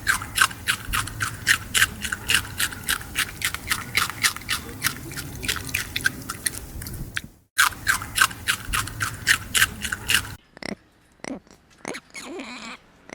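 A small animal chewing food: a fast, even run of crisp crunching strokes, about five a second, with a brief break about seven and a half seconds in. After about ten seconds only a few scattered crunches remain.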